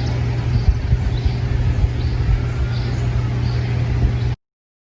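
Steady outdoor background rumble with faint high bird chirps, cutting off abruptly to silence about four seconds in.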